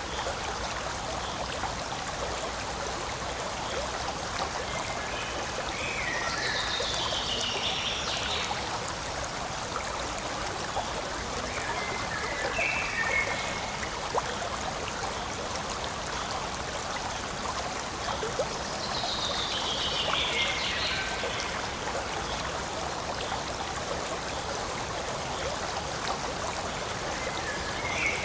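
Forest stream flowing and trickling steadily over stones. Four times, a short higher sound falling in pitch rises over the water.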